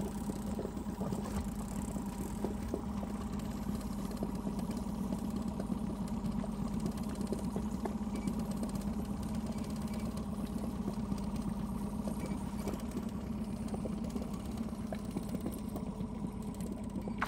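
Outboard motor running steadily at trolling speed, a low even drone with a faint whine above it.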